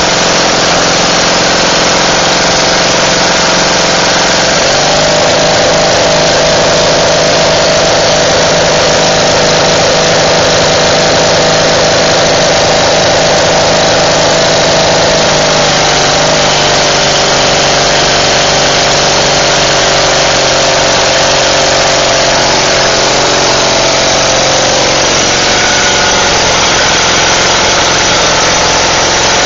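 An engine running steadily at a constant loud level, its pitch shifting slightly about five seconds in and again around sixteen seconds.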